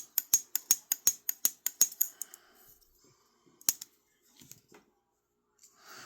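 Sencut Sachse button-lock folding knife being flicked open and shut repeatedly, a quick run of sharp metallic clicks about five a second for about two seconds, then one more click a little later. The action is being tested just after cleaning and reassembly.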